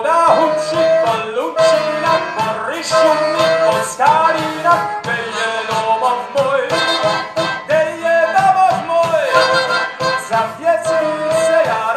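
Live folk band playing an up-tempo tune with a steady drum beat: violin, clarinet, brass, accordion and a lute over a drum kit, with a male lead singer.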